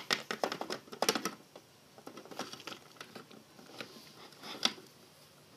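Littlest Pet Shop plastic figurines tapped and hopped along a plastic playset by hand, a rapid run of light clicks for about the first second, then a few scattered single taps.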